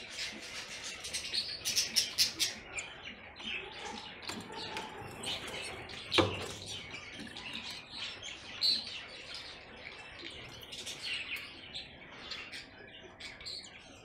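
Canaries and small finches in an aviary chirping and calling in short, quick high notes. A single sharp knock comes about six seconds in.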